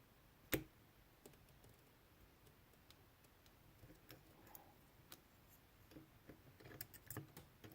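Faint clicks and ticks of a short hook pick working the pin stack inside a Cisa padlock: one sharper click about half a second in, then scattered light taps that come thicker near the end.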